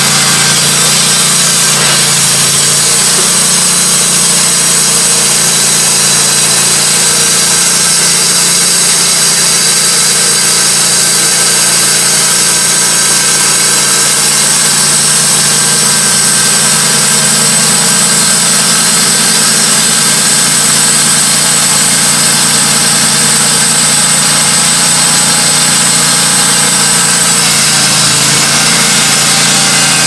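Wood-Mizer LT15 Go portable bandsaw mill running steadily, its band blade sawing through a hemlock log.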